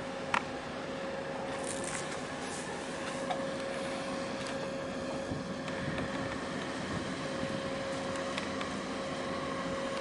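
Steady distant drone of a container ship and its assisting tugboats' engines heard across harbour water, with a constant hum. A sharp click comes just after the start, with a few faint ticks later.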